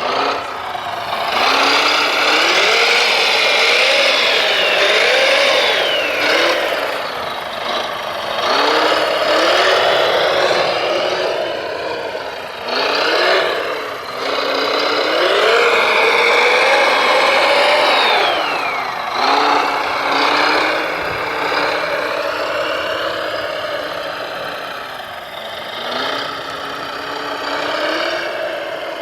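Radio-controlled construction machine working: its motors whine, rising and falling in pitch over and over as the load changes, with loud noisy stretches that swell and fade every few seconds.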